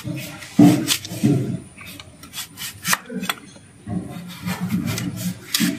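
Kitchen knife slicing a peeled cassava root into thin chips on a wooden cutting board: a string of irregular, crisp cutting strokes, each blade stroke meeting the wood.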